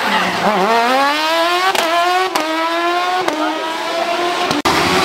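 Rally car engine running hard at high revs, its pitch climbing steadily and then holding, broken by several abrupt cuts.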